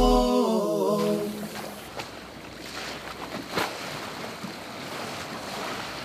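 A song's last notes fade out within the first second, leaving a steady rushing background noise with a few faint knocks.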